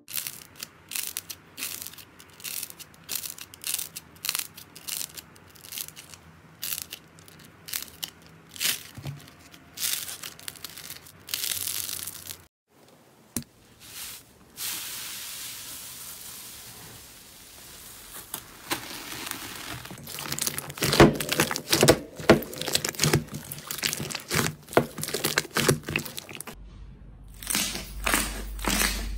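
Slime being squeezed, pressed and poked by hand: many sticky pops, crackles and crunches, with a smoother crinkly hiss in the middle. The sound stops briefly twice.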